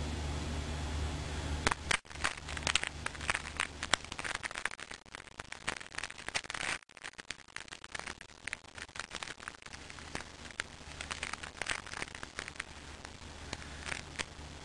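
NeoCube neodymium magnet spheres clicking and snapping against each other as they are pulled apart and rearranged by hand: a rapid, irregular stream of sharp little clicks starting about two seconds in. A steady low hum runs beforehand.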